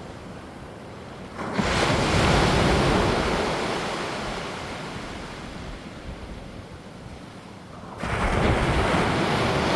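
Waves breaking on a shore: a surge of surf about a second and a half in that washes back and fades, then another wave breaking near the end, with wind on the microphone.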